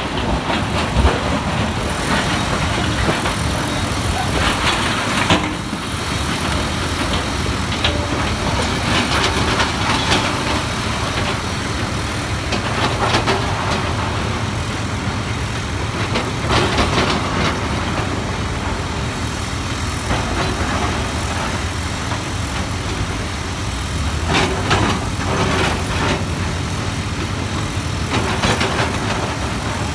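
Komatsu hydraulic crawler excavator's diesel engine running steadily under load, with bursts of rock scraping and clattering every few seconds as the bucket digs into broken rock and loads it into a dump truck.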